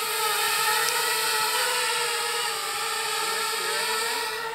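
FPV cinelifter drone hovering and climbing overhead: a steady propeller whine of several tones at once, its pitch dipping slightly at first and then holding.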